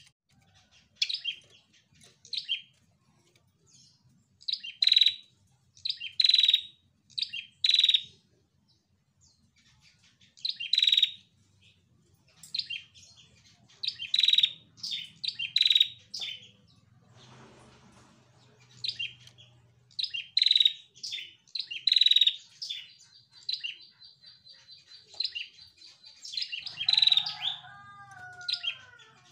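Caged female red-headed prenjak calling: short, sharp, high chirps given in quick bunches with short pauses between, and a fast high trill about three quarters of the way through.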